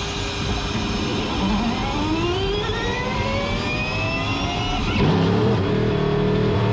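Cadillac V-Series.R hybrid prototype pulling away on electric power, its electric motor making a rising whine as it gathers speed, heard from inside the cockpit. About five seconds in, the 5.5-litre naturally aspirated V8 fires and takes over with a louder, steady engine note.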